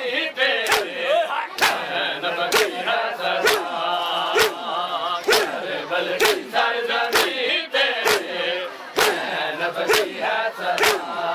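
A crowd of men doing matam, palms slapping bare chests in unison about once a second. The slaps are sharp, with a loud chanted lament from many male voices over them.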